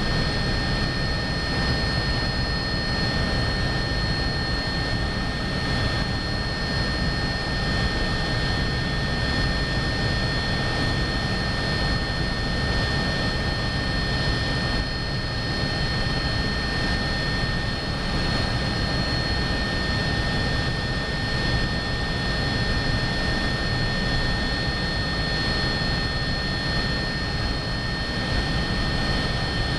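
Cabin noise of an Agusta A109BA twin-turbine helicopter in steady flight: a constant low rumble with steady high-pitched whines over it, unchanging throughout.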